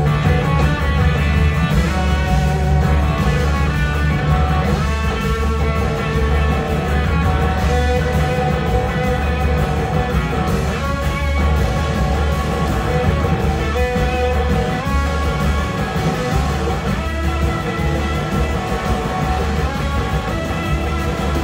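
Live rock band playing: an electric guitar carries a melodic lead line over drums and a heavy low end, loud and continuous.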